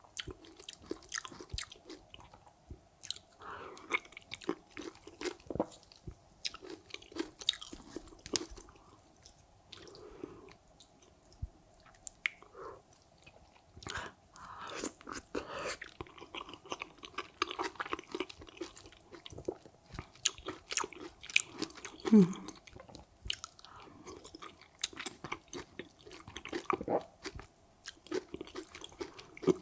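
Close-miked eating sounds: wet mouth clicks, smacking and chewing, coming irregularly. A short hummed "mm" falls in pitch about 22 seconds in.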